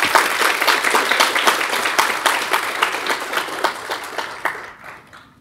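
Audience applauding, many hands clapping, dying away near the end.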